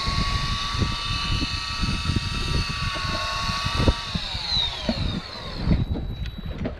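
Electric fishing reel's motor whining steadily as it winds in line; about four seconds in the whine falls in pitch and it stops shortly after. Wind rumbles on the microphone underneath.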